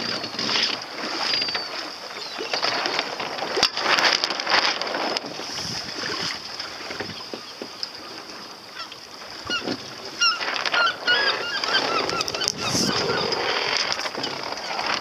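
Gulls calling, a quick run of short cries in the second half, over steady wind and water noise on the microphone of a small boat.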